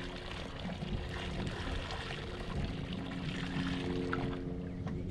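Water pouring and trickling, over a faint steady hum from an electric trolling motor.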